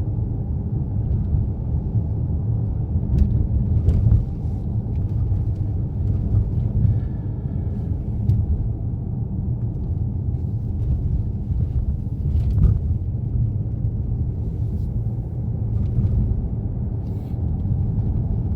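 Car interior noise while driving: a steady low rumble of road and engine, with a few faint knocks.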